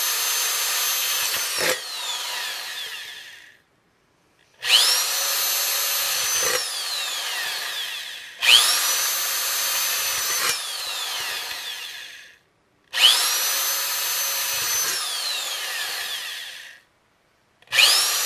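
Power drill with a 3/16-inch bit drilling holes one after another through the bottom of a metal food can. The motor whines up, runs for about two seconds, then winds down with a falling whine, repeated about every four seconds.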